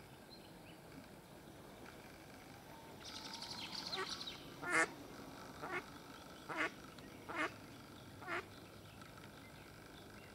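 Mallard hen quacking five times, about a second apart, the first loudest and the last faintest, after a second or so of quicker, softer calling.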